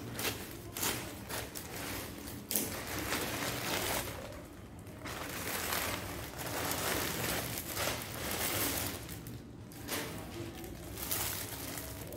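Plastic courier mailer being cut open with scissors, then rustled and crinkled as the packet inside is pulled out, in irregular handling noises.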